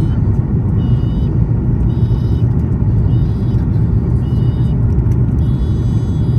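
Steady low rumble of cabin noise inside a Boeing 737 MAX 8 airliner in flight: its CFM LEAP-1B engines and the airflow over the fuselage. Faint high-pitched tones come and go above it.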